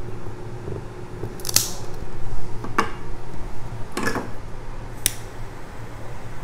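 A cigar cutter snipping the head of a cigar about a second and a half in, then a few more sharp snaps and clicks as the cut cigar and a torch lighter are handled, the last a thin click near the lighter's ignition.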